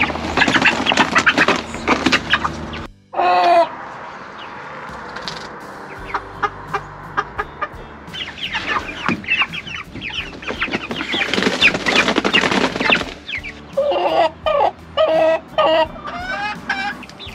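Chickens clucking and calling, with a louder drawn-out call about three seconds in and a quick run of short calls near the end.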